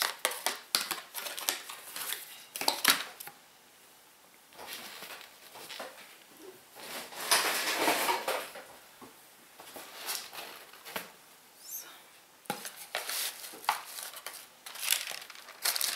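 Small cosmetic products and packaging handled while rummaging in a beauty box: a string of light clicks and knocks, with a longer rustle of packaging about seven seconds in.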